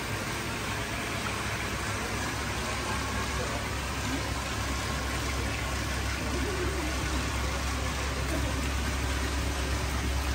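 Steady low hum of koi tank pumps and filtration with running, splashing water, the hum getting a little louder toward the end.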